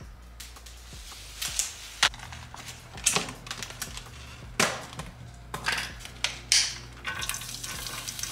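Hot oil crackling in a griddle pan, with scattered sharp pops. Near the end chopped onion goes onto the pan and a steadier sizzle sets in.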